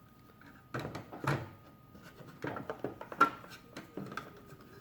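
Small parts of a toy bank's mechanism being handled during repair: scattered light clicks and knocks, the sharpest about three seconds in.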